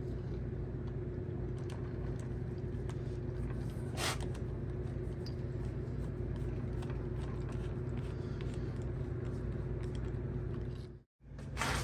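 Scattered light clicks and taps of a screwdriver and screws as a keypad door knob is screwed onto a door, over a steady low hum with a faint constant tone. The sound drops out briefly near the end.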